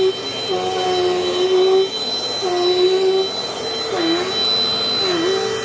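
Dirt Devil Dynamite Plus vacuum cleaner running, a steady motor whine over rushing air. In the second half the whine sags briefly in pitch and recovers, three times.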